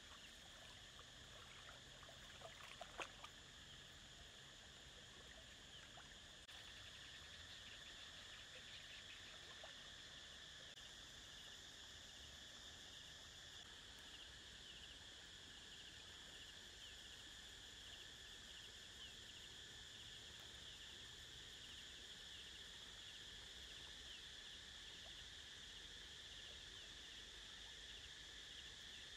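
Faint, steady, high-pitched chorus of insects droning through the whole stretch, with a few soft clicks about three seconds in.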